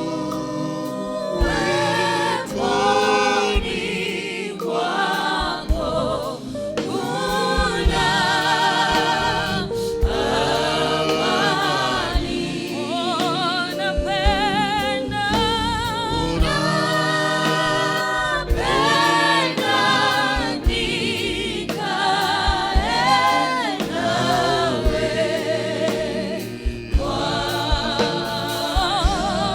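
Gospel worship song sung by a choir with instrumental backing, the voices holding long notes with vibrato. Sharp beats recur throughout.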